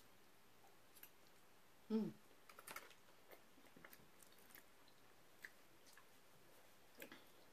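Faint chewing of a mouthful of macaroni and cheese, with small wet mouth clicks, and a brief low 'mm' falling in pitch about two seconds in.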